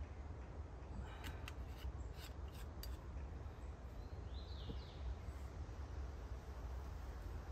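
Forest ambience with a steady low wind rumble on the microphone, a quick run of faint, high, sharp ticks in the first few seconds, and a short bird call about four seconds in.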